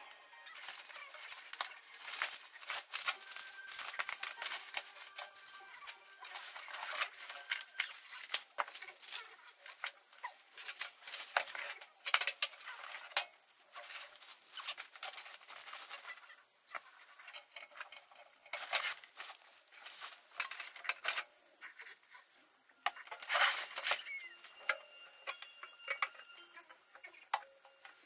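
Bubble wrap, cardboard and plastic packing straps being handled while a boxed dog grooming table is unpacked: a dense, irregular run of crinkles, crackles and small knocks.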